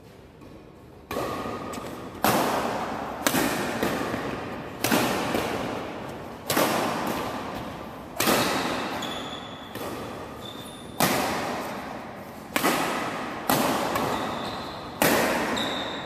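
Badminton rackets striking the shuttlecock in a fast doubles rally: about a dozen sharp cracks, roughly one every second or so, each with a long echo from the hall.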